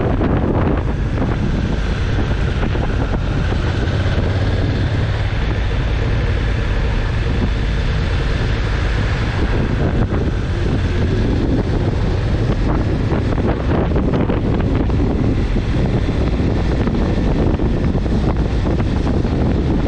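Steady, loud wind rushing over the microphone of a handlebar-mounted camera on a moving motorcycle.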